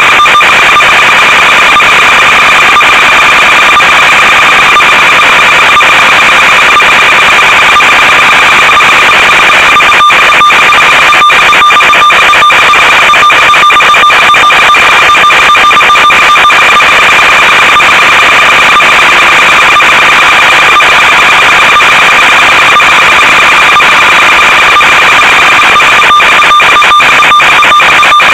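Loud, steady electronic buzz with hiss on the audio of an RC plane's analog FPV video downlink, breaking up in brief dropouts, more often from about ten seconds in.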